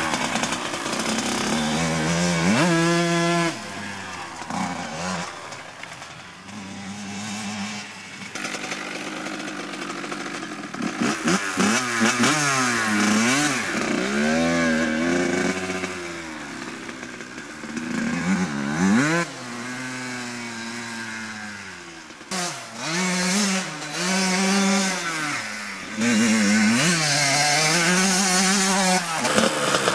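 Kawasaki KX80 two-stroke motocross engine revving hard and repeatedly as the bike is ridden, its pitch climbing and dropping again and again with the throttle and gear changes. It gets quieter and louder in turns as the bike rides away and comes back.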